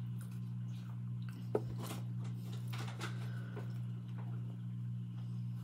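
Close-up mouth sounds of biting into and chewing a soft-bun chicken slider: faint wet clicks and smacks, one sharper click about a second and a half in, over a steady low electrical-sounding hum.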